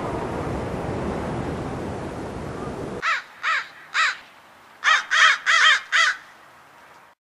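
A steady rush of wind and surf that cuts off suddenly about three seconds in, then a bird calling: about eight short calls in two quick groups.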